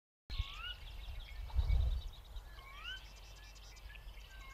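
Birds calling outdoors: a clear rising whistled note, repeated three times about two seconds apart, over many faint high chirps. A low rumble swells briefly early on.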